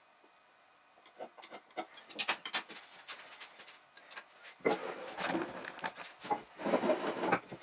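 Sped-up workshop handling sounds: quick clicks and taps of metal marking tools on a wooden bench top, then, from about halfway, a louder, denser run of knocks and rubbing as the hardwood leg is handled and set on the bench.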